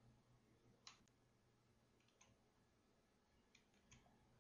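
Near silence, broken by a few faint, short clicks, the clearest about a second in.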